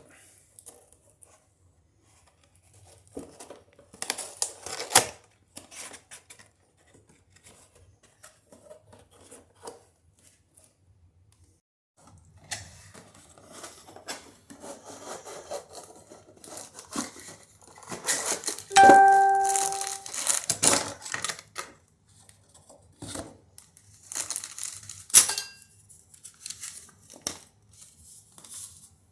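Plastic being handled and crinkled, with scattered clicks and knocks, and two brief ringing clinks: the louder one about two-thirds in, the other near the end.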